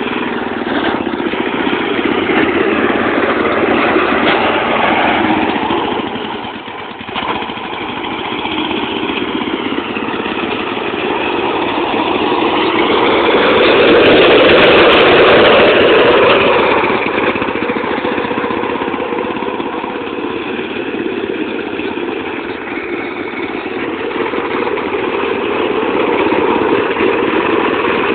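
Riding lawn mower engine running hard under load, its pitch rising and falling as the revs change, loudest about halfway through.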